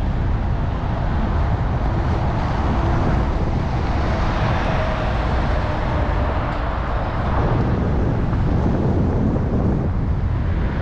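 Wind buffeting the microphone in a steady, loud rumble.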